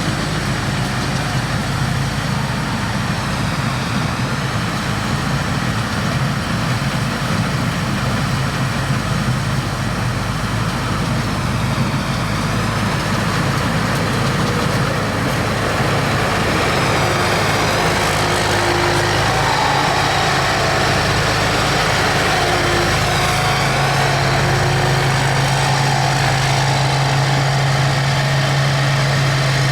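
Rice combine harvester running, a steady engine drone that grows louder and more even about two-thirds of the way in.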